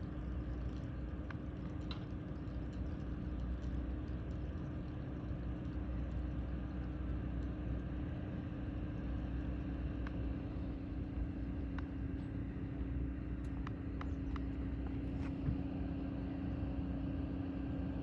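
Cable ferry's engine running, a steady low drone with a constant hum as the ferry crosses toward the landing, with a few faint clicks in the second half.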